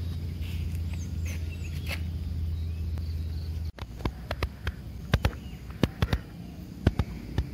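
Outdoor forest ambience: a steady low rumble for the first few seconds, then, after an abrupt break, irregular sharp clicks with faint high chirps.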